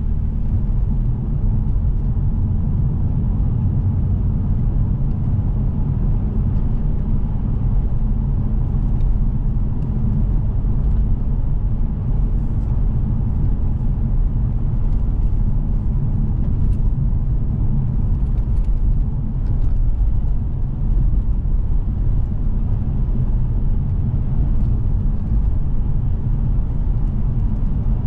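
Steady road and engine rumble heard inside the cabin of a 2006 BMW 630i cruising at a constant pace, with its 3.0-litre straight-six running under a light load.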